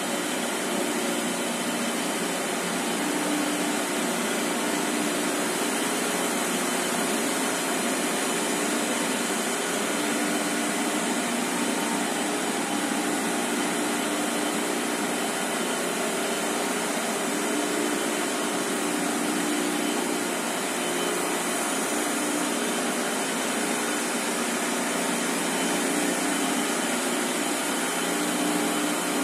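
High-speed jumbo roll slitting and rewinding machine for tissue paper running at about 800 metres a minute: a steady rushing noise of rollers and moving paper web with a low hum running through it.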